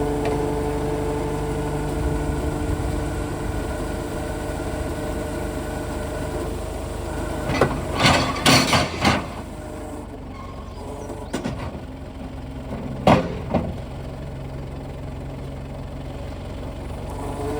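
New Holland 555E loader backhoe's diesel engine idling steadily. A cluster of loud knocks comes about eight to nine seconds in, and another near thirteen seconds.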